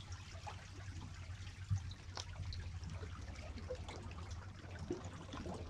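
Water trickling and lapping against shore rocks over a steady low rumble, with a few faint ticks and one soft bump a little under two seconds in.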